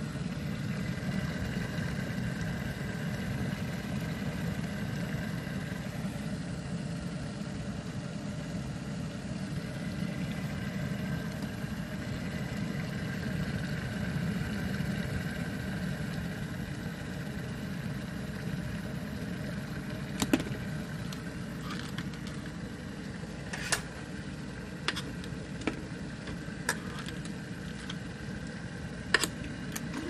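Cuisinart JK-17P1 stainless steel electric kettle heating water, a steady low rumble of water coming up to the boil. In the last third, a handful of short sharp clicks and taps.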